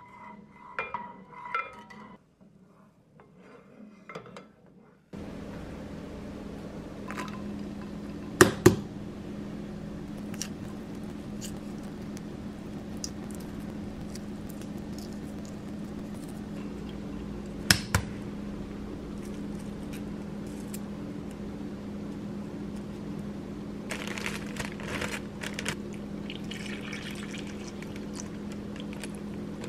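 Kitchen prep over a steady low hum: two sharp knocks about eight and eighteen seconds in, then a zip-top plastic bag crinkling and liquid being poured into it near the end.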